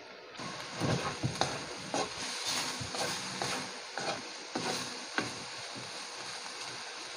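Pork cubes sizzling in a wok as their fat begins to render, with a wooden spatula stirring and scraping against the pan in repeated short knocks. The sizzle starts about half a second in.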